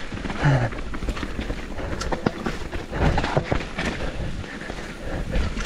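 Canyon Torque full-suspension mountain bike descending a dirt trail: tyres rolling over dirt, leaves and loose stones, with frequent knocks and rattles from the bike over the rough ground.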